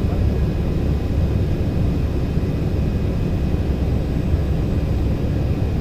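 Steady cabin noise inside an Embraer 190 airliner in flight on approach: an even low rumble of the General Electric CF34-10E turbofan engines and airflow, heard through the fuselage.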